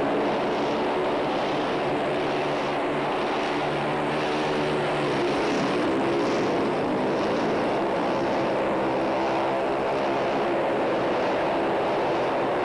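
Several speedway motorcycles racing together on a cinder track. Their single-cylinder engines blend into one steady drone whose pitch wavers as the throttles open and close.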